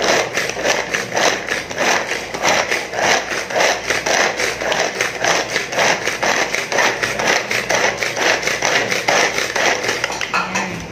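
Pull-string manual food chopper worked with quick, evenly repeated pulls of its cord, the blades spinning and chopping garlic cloves in the plastic bowl. It stops near the end.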